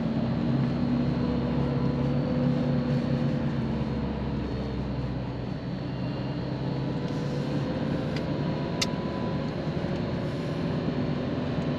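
Vehicle engine running steadily while driving over desert sand, heard from inside the cabin, with a noisy rumble under a steady hum. Two faint ticks come about two-thirds of the way through.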